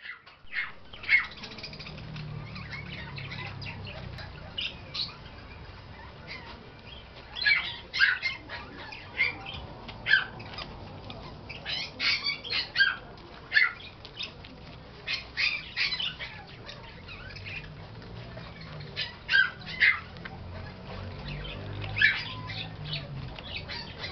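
Shih Tzu puppies giving short, high-pitched squeaks and yips while they play-fight, coming in scattered clusters over a low steady hum.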